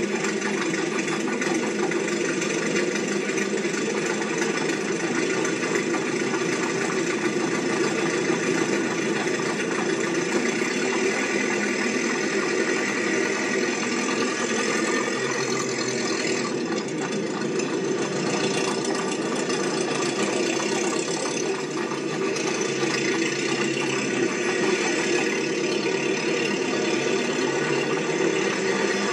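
A steady mechanical running noise with a continuous rattle, even in level throughout.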